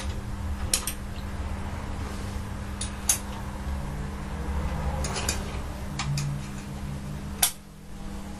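Small steel engine parts clinking and tapping as they are handled and fitted on a bare engine block, with about half a dozen sharp clicks spread through, over a steady low hum.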